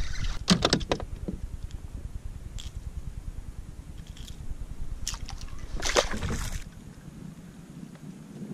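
Water sloshing and splashing against a kayak while a caught redfish and tackle are handled, with a few sharp clicks and knocks about half a second in and a louder clatter of knocks and splashes around five to six seconds in. A low wind rumble on the microphone near the end.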